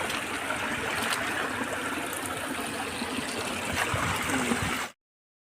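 Rain-fed hill stream running down over rocks in a steady rush of water, cutting off abruptly about five seconds in.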